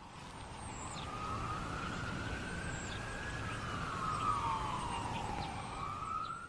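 Ambulance siren wailing, its pitch sliding slowly up and down, growing louder over the first second or so, over a low rumble.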